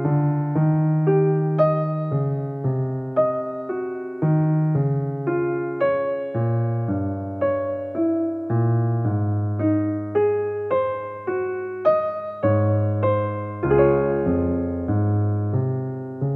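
Background music: a slow piano melody of single notes, about two a second, over held low bass notes.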